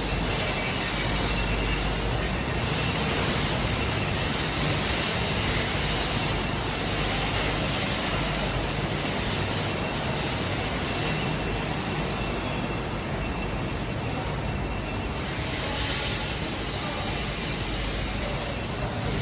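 Steady factory-floor noise: an even hiss with a low rumble underneath and no distinct knocks or tones.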